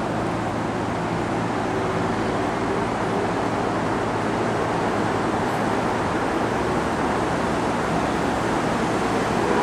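Steady rushing noise of strong typhoon wind and station ambience on a railway platform, even in level throughout.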